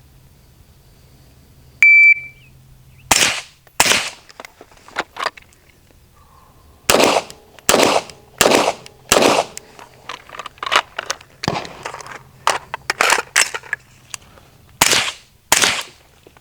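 A shot-timer start beep, then a timed string of gunshots: two rifle shots, four quick pistol shots about two-thirds of a second apart, a run of lighter cracks, and two last loud shots near the end.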